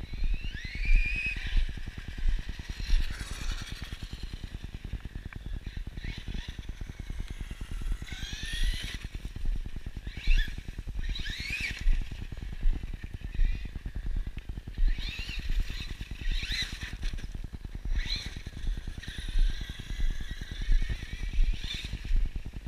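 Axial Yeti XL RC truck's electric motor and drivetrain whining in repeated bursts, rising in pitch as it accelerates and dropping off as it eases. This happens near the start, then around 8, 11–12 and 15–17 seconds, and again late on. Under it runs a steady low rumble with regular thumps about once a second.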